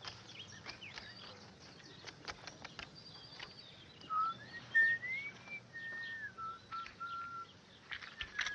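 A man whistling a short, slow tune of held notes that climbs and then steps back down, starting about halfway through. Before it there are faint bird chirps and small clicks from handling.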